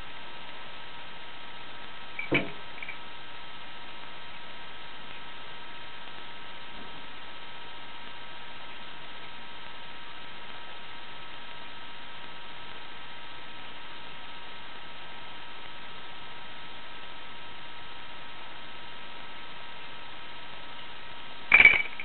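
Steady electrical hum and hiss, with a short click about two seconds in and a brief sharper sound near the end.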